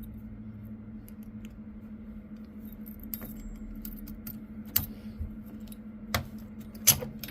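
Master Lock padlock keys jangling and clicking as a key is handled and worked into the padlock: a few sharp metallic clicks spread out, the loudest near the end, over a steady low hum.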